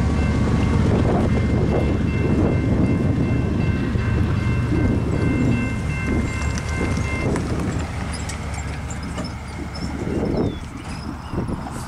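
Railroad crossing warning bell ringing steadily while the gates lift, stopping about seven seconds in, over the low rumble of a freight train fading away. Near the end a pickup truck drives over the crossing.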